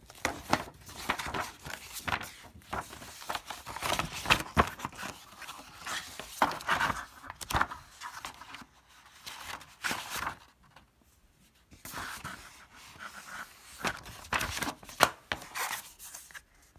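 Paper rustling and crisp page flips as a printed modem manual is leafed through by hand, with sharp paper snaps among them. After a short pause past the middle, more rustling of paper.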